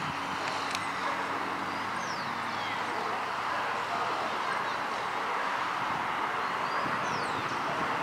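Train rolling slowly away over the rails: a steady rumble and hiss from its wheels, with a faint low engine hum that fades in the first second or two. A few faint bird chirps sound over it.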